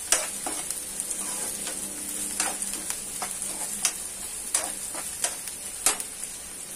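Chopped onion and green chilli frying lightly in hot oil in a non-stick kadai over a low flame: a steady sizzle, with a steel slotted spoon clicking and scraping against the pan as it is stirred, about every half second.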